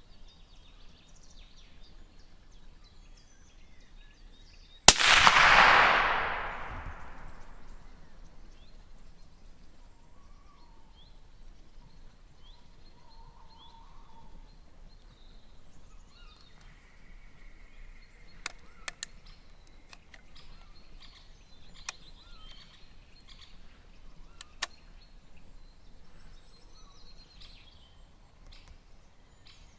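A single hunting rifle shot about five seconds in, its echo rolling away over two to three seconds. Afterwards faint birdsong and a few short, sharp clicks.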